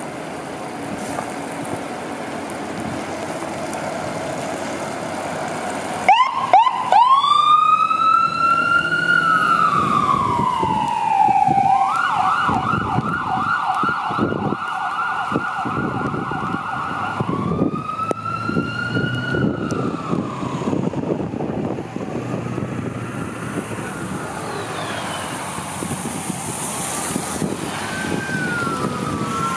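Fire engine's diesel running, then about six seconds in its siren starts with a few quick rising whoops, goes into a slow wail that rises and falls, switches to a fast yelp, and returns to a wail. In the last several seconds, fainter siren wails from farther away overlap.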